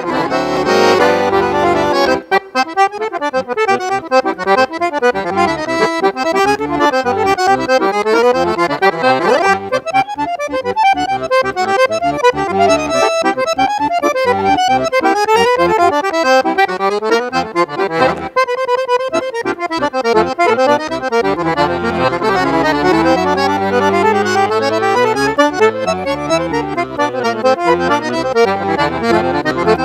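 Scandalli piano accordion played solo: a quick, busy melody on the treble keys over bass accompaniment, pausing on a held chord a little past the middle.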